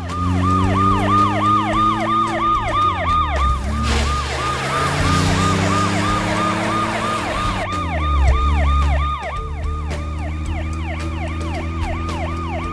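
Police car siren on a fast yelp, about five rising-and-falling sweeps a second without a break. Under it the car's engine is accelerating, its pitch rising and dropping back several times, with a rushing noise for a few seconds in the middle.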